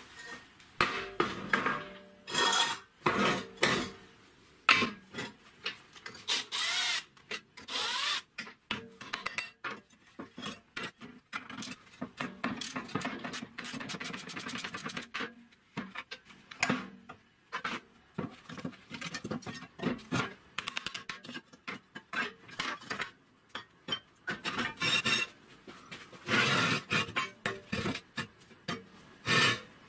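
Metal car parts, a brake drum and wheel hub, being handled, knocked and scraped on a steel workbench in many separate clanks, some ringing briefly. A hiss from an aerosol spray can runs for about three seconds near the middle.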